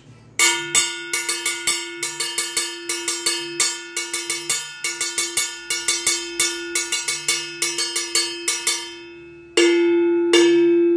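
Low-pitch handmade steel timbal bell (a cowbell) struck with a wooden drumstick, played in a quick rhythmic pattern for about nine seconds. Near the end come a couple of louder single strikes, left to ring.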